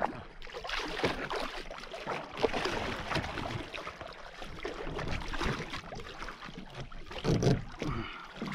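Water splashing and sloshing against a kayak hull as a hooked tarpon thrashes at the surface alongside, with irregular knocks and splashes throughout.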